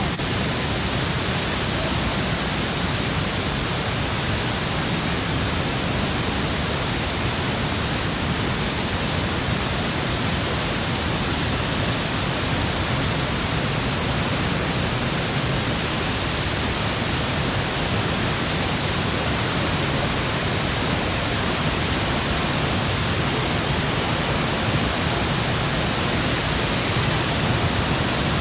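Niagara Falls pouring down: a steady, unbroken rush of water noise.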